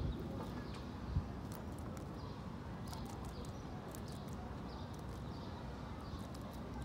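Gull pecking at food on a ledge, its beak tapping in irregular sharp clicks over a steady low rumble, with two dull thumps in the first second or so.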